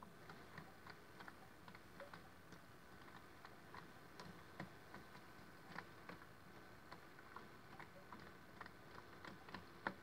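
Miele W1 toy washing machine running its rinse, faint: small irregular ticks and splashes, a few a second, as water tumbles in the turning drum, over a quiet steady motor hum.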